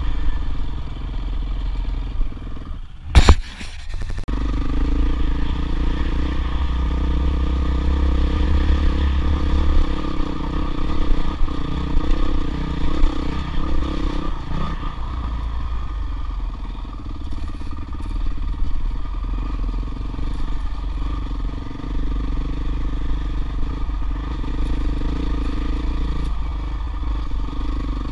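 Off-road motorcycle engine running steadily while riding a rough dirt track, heard from the rider's own bike, its note shifting about halfway through. A single sharp, loud knock about three seconds in.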